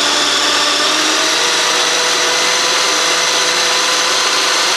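Small electric food processor running continuously at a steady pitch, pureeing thawed corn kernels with two eggs.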